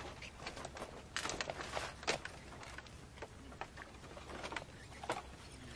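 Footsteps and scattered knocks on a bamboo platform's plank deck as a man moves about and handles a long pole, over a low steady hum. The knocks are densest between about one and two seconds in.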